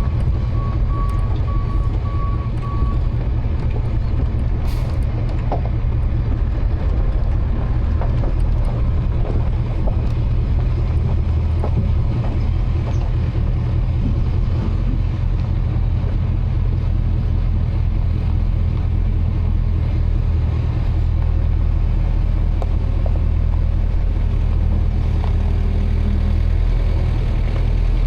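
A vehicle engine running steadily with a low drone, and a high electronic beep repeating rapidly for the first few seconds.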